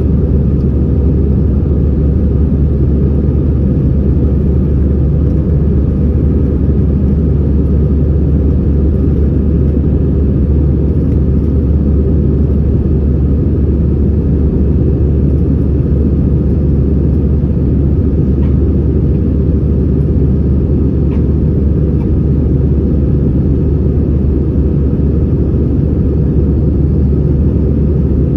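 Airbus A320-214 cabin noise in flight: the CFM56-5B engines and airflow make a steady, loud low rumble that holds unchanged.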